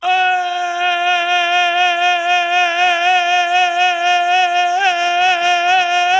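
A man's voice holding one long, high sung note with a slight waver, cutting in suddenly out of silence: the drawn-out opening cry of a Gujarati Hanuman bhajan.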